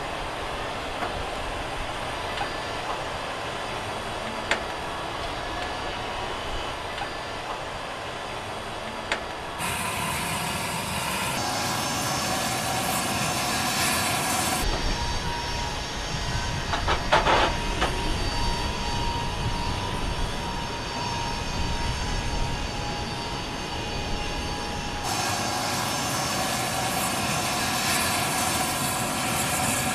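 M1A2 Abrams tank moving slowly onto a low-loader trailer: its gas-turbine engine gives a steady whine over a low rumble, with clanks and squeals from the steel tracks and a short run of sharp knocks about 17 seconds in. The sound changes abruptly about 10, 15 and 25 seconds in.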